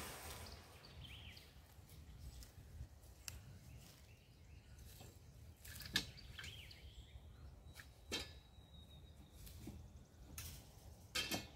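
Sparse faint metallic clinks and taps as steel wire cattle and kennel panels are handled and shifted, with a few bird chirps. It opens with the fading ring of a metal clang.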